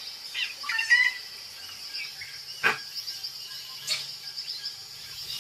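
Jungle ambience: a steady high-pitched insect drone with scattered bird chirps and a couple of short, sharp calls.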